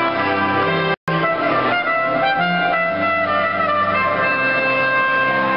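Instrumental music with long held notes. About a second in, the sound cuts out for an instant and different music starts. After the break it is a small string ensemble, violin and cello, playing.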